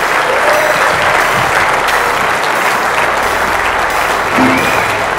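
Large seated audience applauding steadily at the end of a talk.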